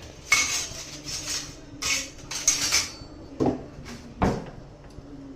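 A spoon scraping and stirring in a pressure pan, mixing lumps of palkova into warm milk, in a run of scraping strokes, followed by two sharp knocks against the pan about a second apart.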